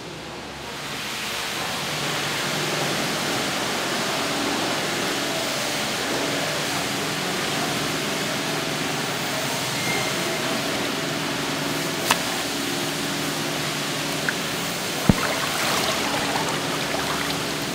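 Running water pouring and splashing steadily as raw beef intestines are rinsed by hand. It starts about a second in and eases off near the end, with a couple of sharp clinks.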